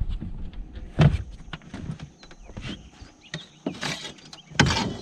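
Knocks and clatters of someone moving about and handling gear on a boat's deck right by the microphone, with a loud thump about a second in and a noisier clatter near the end, over a faint steady high whine.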